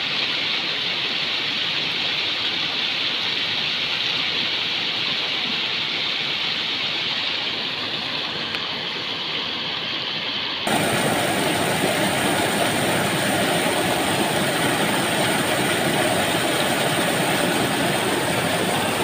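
Steady rush of water flowing through a small ditch. About ten seconds in it changes abruptly to a fuller, brighter rush.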